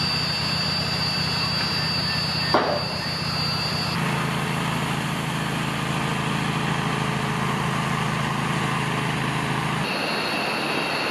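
Engine-driven bandsaw mill running: a steady engine hum with a high whine above it. There is a brief knock about two and a half seconds in, and the pitch and balance of the sound shift abruptly about 4 and 10 seconds in.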